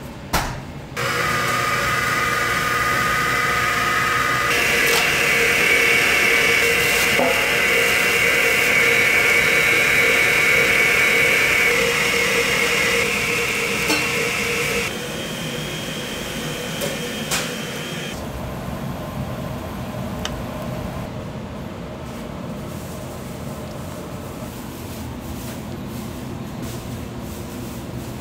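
A machine running steadily with a hiss and several held whining tones. It starts about a second in after a sharp click, gets louder a few seconds later, then drops off past the middle and runs on quieter to the end.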